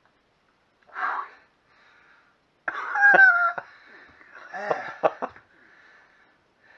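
A man out of breath after a maximal steel-bar bend: a sharp exhale about a second in, then a loud wheezing gasp and a few short coughs.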